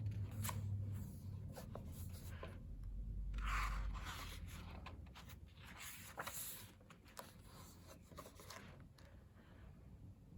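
Pages of a glossy photobook being turned and handled: a few paper swishes and slides among light taps and clicks, growing quieter toward the end.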